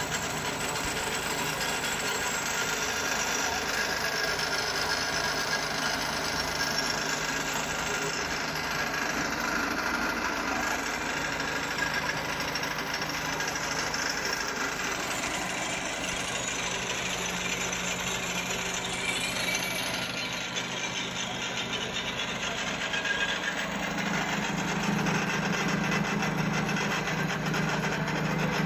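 Small engine running a belt-driven grinding mill, the CX-1000 chaff cutter's grinder, milling wheat into flour. The steady mechanical drone and grinding noise grow a little louder near the end.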